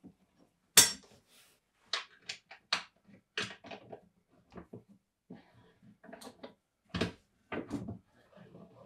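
A string of sharp clicks and knocks as a pinball cabinet's metal side rail is handled and worked loose, the loudest about a second in.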